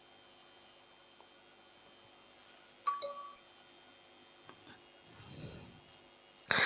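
Two quick metallic clinks about three seconds in, each ringing briefly, from the copper plates and screws being handled while they are fixed to a piece of wood; a few faint ticks and a soft rustle follow.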